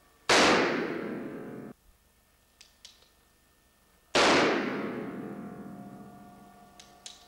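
Two shots from a Ruger Blackhawk .357 Magnum single-action revolver, about four seconds apart, each followed by a long echo off the concrete walls of an indoor range; the first echo cuts off abruptly. Between and after the shots come faint clicks of the hammer being thumbed back.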